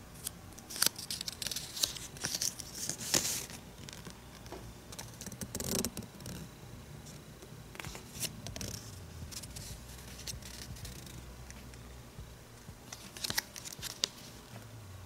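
Plastic toy packaging and a paper insert card being handled and opened, crinkling and tearing in irregular bursts, busiest in the first few seconds and again near the end.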